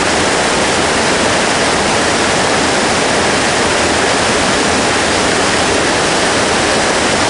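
Large waterfall, a roughly 70-foot drop, rushing steadily, heard close up.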